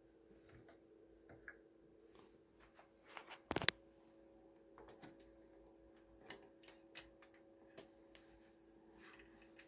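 Faint steady electrical hum with scattered small clicks, and a sharper cluster of clicks about three and a half seconds in, like handling or button presses on bench equipment.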